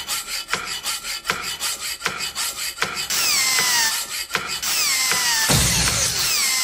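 Workshop tool sounds: rhythmic rasping strokes, about two or three a second, giving way about three seconds in to a harsher, steady grinding noise with repeated falling whines.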